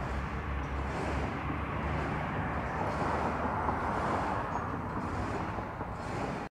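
Steady outdoor noise of road traffic, swelling about three to four seconds in as a vehicle passes.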